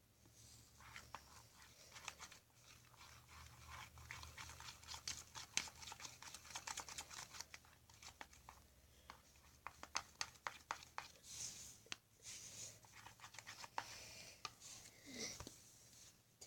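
Glue and shaving-cream slime mixture being stirred: faint, dense crackling and clicking, with a short lull about two-thirds of the way through.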